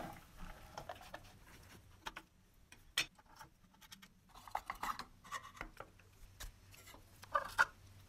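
Rusty metal toy truck parts handled and taken apart on a wooden table: scattered light clicks, taps and scrapes of metal. A busier patch comes about halfway through, and two louder knocks come near the end.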